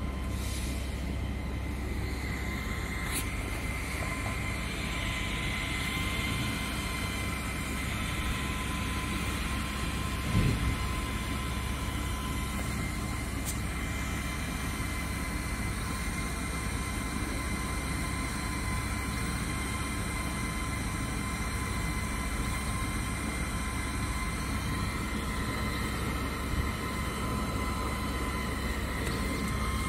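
Diode laser engraver running: a steady whirring hum with a high, steady whine, from the laser module's cooling fan and the gantry drive as the head rasters over a stainless steel nameplate. A brief thump about ten seconds in.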